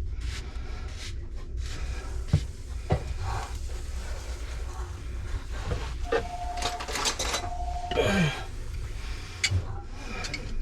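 Scattered clicks and knocks from handling and threading the metal parts of a push-button pop-up sink drain, over a low steady hum. Two short squeaks come about six and seven and a half seconds in; the second drops in pitch near the end.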